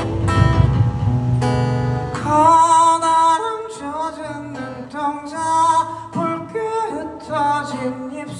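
Acoustic guitar strummed live, joined about two seconds in by a man singing a melody over it.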